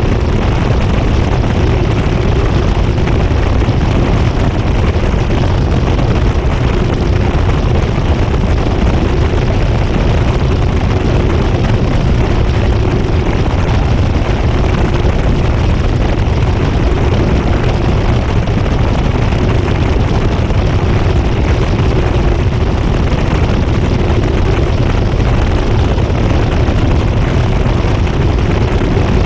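GE GTW220ACKWW top-load washing machine heard from inside the tub, from a camera mounted on the agitator, running steadily through its high-speed spin: a constant low rumble with a faint steady hum.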